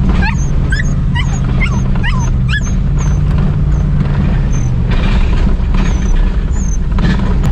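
Hunting hounds whining and yipping in quick rising-and-falling cries, thickest in the first few seconds and thinning out after, over the steady drone of the truck's engine and tyres on a dirt road.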